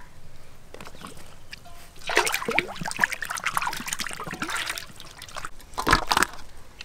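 Water sloshing and splashing in a metal basin as a large fish is handled and lifted out of it, then a sharp thump near the end as the wet fish is set down on a steel tray.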